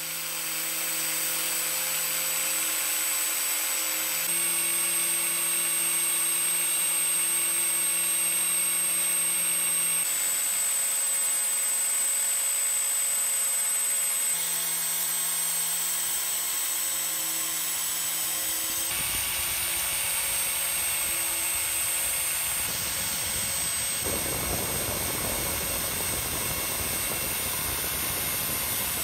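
A small power tool running with a steady high whine and hiss. Its tone shifts abruptly several times, and from about two-thirds of the way through it turns rougher, with a lower rumble added.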